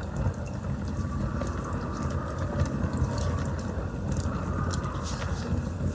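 Campfire burning: a steady low rumble of flame with frequent small crackles and pops from the burning wood.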